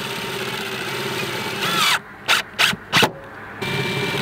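Cordless impact driver running for about two seconds as it drives a screw through the PVC half-pipe into the wooden end cap, then winding down. Three sharp knocks follow, and the driver starts again near the end on the next screw.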